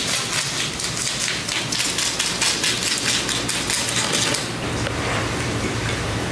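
Rapid, irregular clicking and scraping, with a steady low hum taking over about four and a half seconds in.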